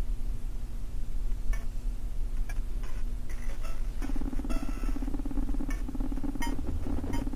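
Opening of an ambient electronic track: a low steady drone, with sparse clock-like ticks coming in about a second and a half in. A fuller hum joins about four seconds in as the ticks grow busier.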